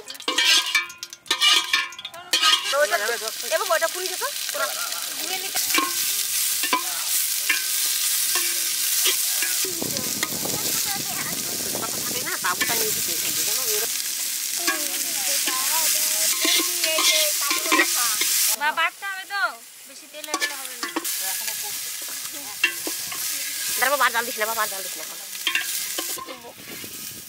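Sliced onions sizzling as they fry in hot oil in an aluminium pot, stirred with a metal ladle.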